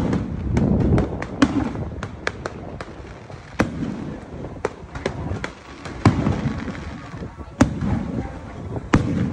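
Aerial fireworks shells bursting: a string of sharp bangs at uneven intervals, several close together in the first two seconds, then spaced about a second apart.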